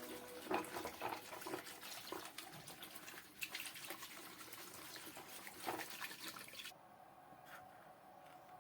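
Faint water splashing and trickling with small irregular clicks, stopping abruptly about two-thirds of the way through.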